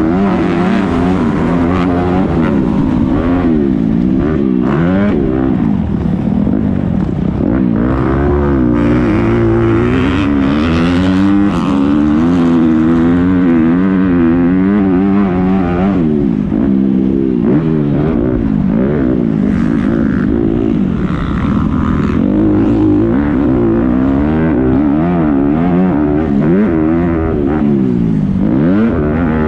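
Motocross bike engine heard from on board, revving up and down over and over as the rider races the lap, its pitch rising on the throttle and falling each time it is rolled off.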